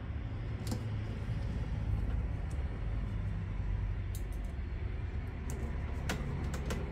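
A screwdriver driving the screws of a new oscillation gearbox on a Sharp stand fan's motor, with a few light, scattered clicks of the tool against the screws, over a steady low rumble.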